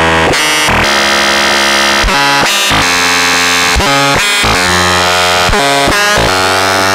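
Make Noise Eurorack modular synthesizer patch playing a dense stream of pitched tones mixed with bright noise, jumping abruptly to new pitches several times a second.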